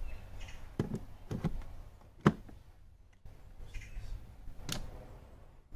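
A few sharp plastic clicks and knocks from the battery compartment of a Parkside 20V cordless lawnmower as its clear hinged lid is opened and handled, with the loudest click a little over two seconds in.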